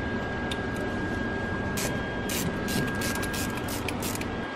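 Hand socket ratchet clicking in a quick, uneven run as it swings back and forth to back out a 10 mm water pump bolt. The clicking starts about two seconds in, over a steady background hiss.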